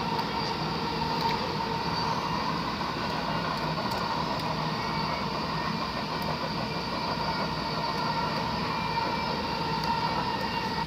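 Steady rumble and drone of a train running, with a few held tones over the noise, cutting off suddenly at the end.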